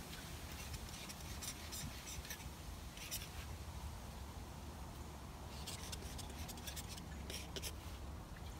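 Faint, short scratchy strokes of paint being worked onto a painting board, coming in a few brief clusters over a low steady background rumble.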